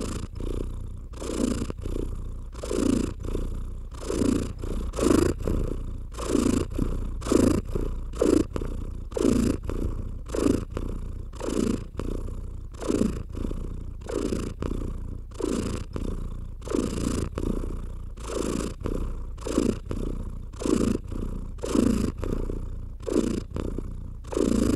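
Domestic cat purring close up, the purr swelling and fading in an even rhythm about once a second.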